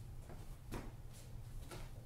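Faint room noise with no music: a low steady hum with a few soft clicks and knocks.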